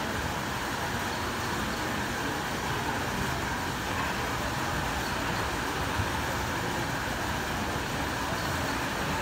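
Steady murmur of spectators and players chatting in a gymnasium, with a single light knock about six seconds in.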